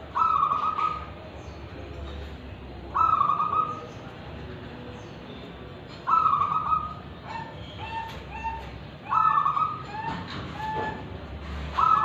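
Zebra dove (perkutut) cooing over and over in a steady rhythm. Each loud, clear phrase comes about every three seconds, and some are followed by a run of shorter, lower notes.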